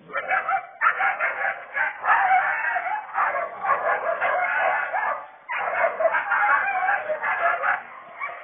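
Loud, almost unbroken animal cries with a brief break about five seconds in.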